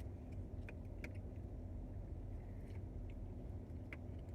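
Steady low background rumble with a few light clicks and taps from eating and handling food.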